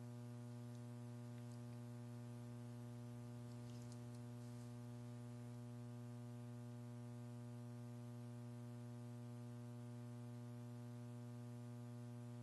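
Faint, steady electrical mains hum on the audio line, a low buzz with a ladder of even overtones that does not change.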